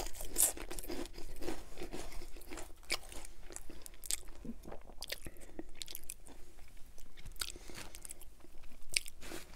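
Close-miked chewing of ripple-cut potato chips: a run of crisp, irregular crunches.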